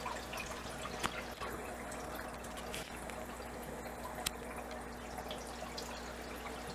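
Aquarium water trickling and dripping steadily, over a faint steady hum. Two sharp clicks stand out, about a second in and about four seconds in.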